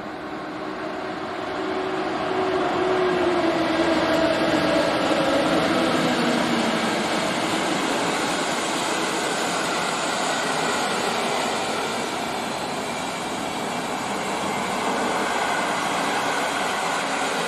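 EP07 electric locomotive hauling a passenger train passes at speed. A whine from the locomotive drops in pitch as it goes by in the first few seconds, then the coaches run past in a steady rush of wheel and rail noise.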